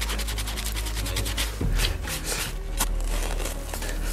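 A small hand brush sweeping loose sand in quick, rhythmic scratching strokes, with a few louder, coarser sweeps about two seconds in.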